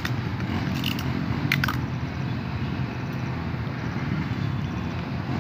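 Steady low outdoor rumble, with a few short clicks and a brief scratchy sound about one and a half seconds in from handling the taped stick and scotch tape.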